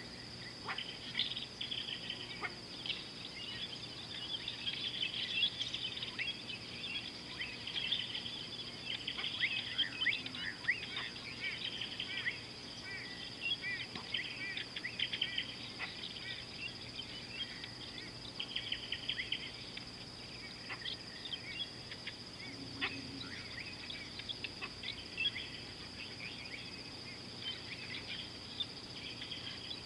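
Many birds chirping and trilling over a steady high-pitched insect drone.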